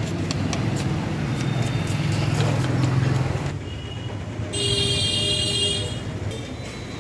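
Street traffic: a motor vehicle engine rumbling under a few faint knife chops on a wooden block. After a change of sound about three and a half seconds in, a vehicle horn sounds for about a second and a half.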